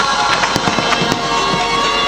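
Fireworks bursting in quick succession, sharp bangs and crackles over music with long held notes.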